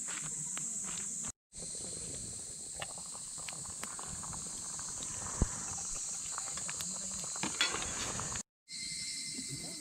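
A steady chorus of insects, with scattered light clicks and rustles. The sound drops out to silence twice, briefly.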